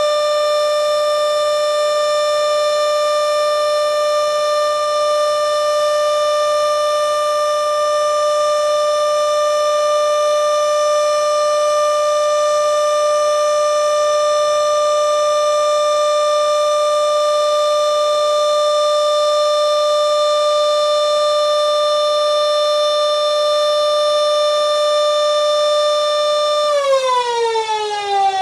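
Kuangbad RF300V single-chopper vertical electric warning siren running at full speed, holding one steady tone. Near the end it begins to wind down, the pitch falling.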